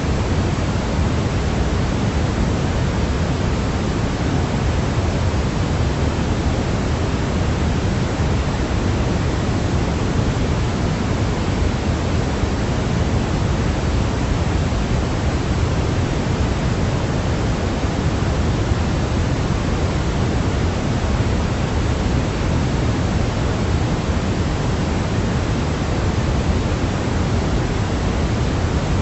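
Steady white noise for baby sleep: a continuous, unchanging rushing hiss, heavier in the low end than in the treble.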